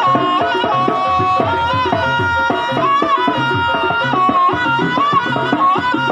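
Jaranan gamelan music: a reedy wind melody (slompret) winding and bending over a steady pattern of kendang hand-drum strokes.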